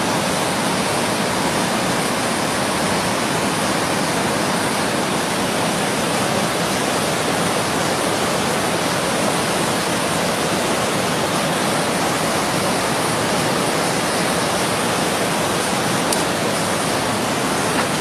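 Whitewater river rapids rushing: a loud, steady wash of fast water that does not change.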